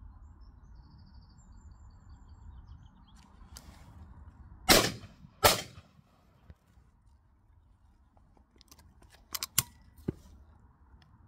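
Two shots from a 12-gauge over-and-under shotgun, one from each barrel, fired less than a second apart. About four seconds later come a few sharp metallic clicks as the action is broken open to extract the spent cartridges.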